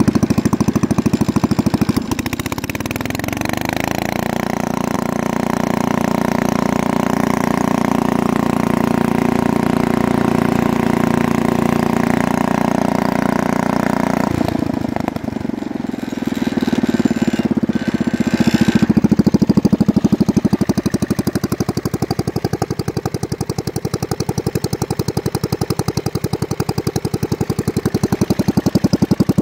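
Allis-Chalmers B-1 garden tractor's small engine running under way. The revs rise over the first few seconds and hold steady, then drop about halfway through and settle into lower, steady running.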